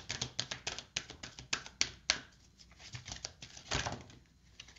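Oracle cards being shuffled and handled: a quick run of light clicks and flicks in the first two seconds, then a few scattered ones.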